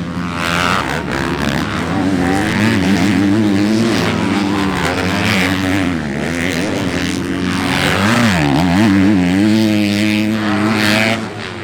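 Motocross bike engines revving up and down as riders race around the track, pitch rising and falling with the throttle and gear changes.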